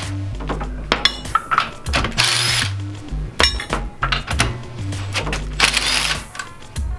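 Cordless drill spinning out screws in several short whirring bursts, over background electronic music with a stepping bass line.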